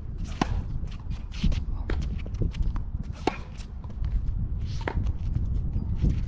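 Tennis rally on a hard court: several sharp pops of racket strings striking the ball, about every one and a half seconds, with shoes scuffing the court between hits. A steady low rumble of wind on the microphone runs underneath.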